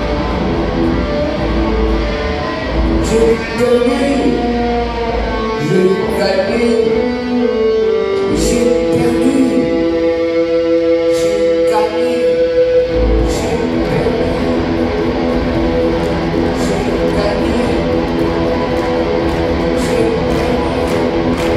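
Live band music led by guitar, with long held notes through the middle.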